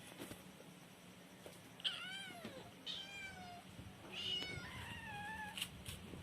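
A cat meowing three times, about a second apart. Each meow is pitched and arched, and the third is the longest.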